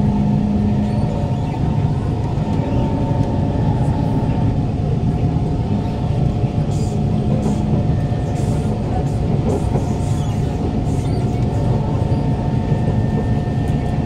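Kawasaki Heavy Industries C151 metro train heard from inside the carriage while running at restricted speed: steady wheel-on-rail rumble with the flat, level tones of its GTO-VVVF traction motors held over it.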